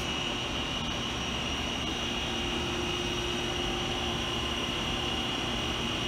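Cincinnati universal OD cylindrical grinder running under power: a steady machine hum with a constant high whine.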